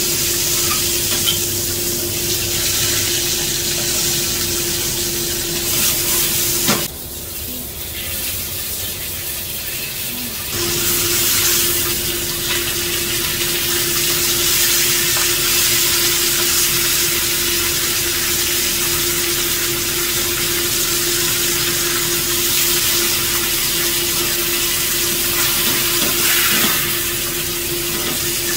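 Large fish pieces frying in hot oil in a wok, a steady sizzle. The sizzle drops off about seven seconds in and comes back about three seconds later.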